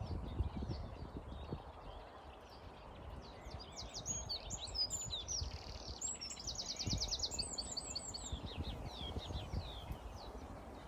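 Reed warbler singing: short, varied phrases of high notes, with a quick run of evenly repeated notes about six seconds in. Wind rumbles low on the microphone underneath.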